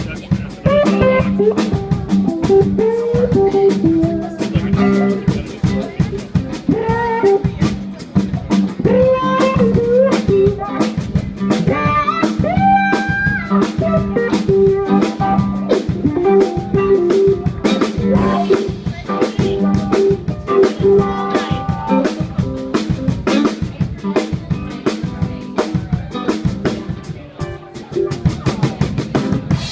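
Live band playing: an electric guitar lead with bending, gliding notes over a drum kit keeping a steady beat and a bass line.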